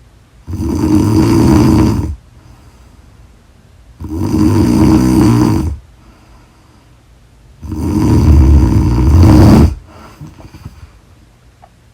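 A sleeping woman snoring loudly: three long snores of about two seconds each, a few seconds apart, with quiet between them.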